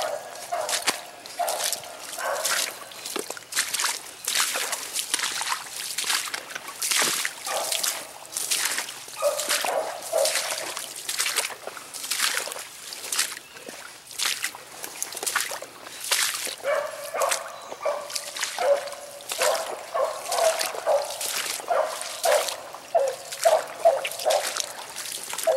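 A rabbit hound baying on the track in repeated short calls, most steadily in the last third. Over it, brush swishes and crackles, and shallow swamp water splashes underfoot as someone wades through.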